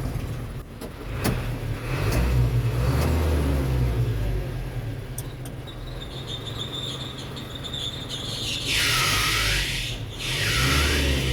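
Isuzu Reward truck engine idling, then from about three-quarters of the way in, loud squeals from the engine's drive belt, two bursts about a second each: the AC belt slipping and squealing with the air conditioning on.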